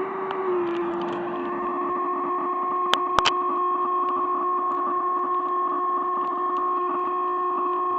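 Electronic noise machine giving a steady feedback-like drone of held whistling tones, one low and one higher. The low tone wavers briefly near the start, and two sharp clicks come about three seconds in.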